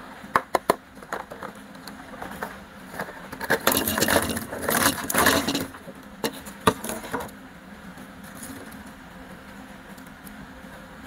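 Plastic candy containers being handled: sharp plastic clicks and knocks, a denser rattling clatter for about two seconds in the middle, then only a steady low hum.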